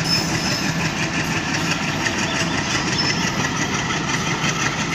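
Diesel locomotive's engine running steadily as it hauls a passenger train past.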